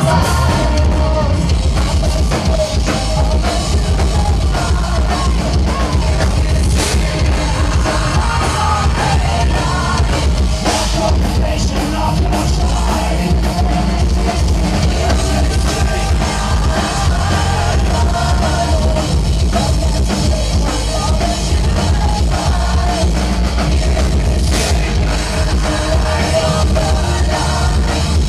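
A metal band playing live: pounding drum kit, heavy distorted guitars and bass, with singing over the top. Loud and continuous throughout.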